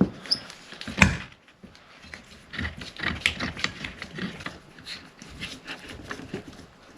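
Cedar boards being handled during a glue-up: one sharp wooden knock about a second in, then a run of small clicks, taps and rubbing as the glued boards are worked together.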